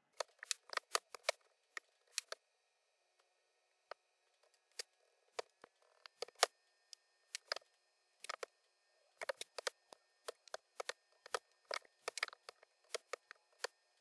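Typing on a computer keyboard: irregular keystroke clicks in quick runs, broken by short pauses.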